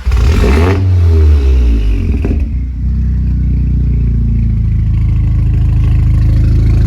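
Audi S3's turbocharged four-cylinder engine flares loudly at the start, then settles within about two and a half seconds into a steady idle.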